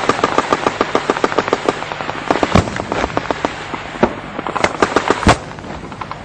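Combat gunfire: rapid strings of sharp shots, dense in the first two seconds and then more scattered, with a few louder single reports standing out in the second half.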